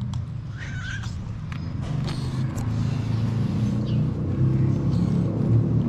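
A cat gives a short meow a little under a second in, over a steady low rumble, with scattered small clicks.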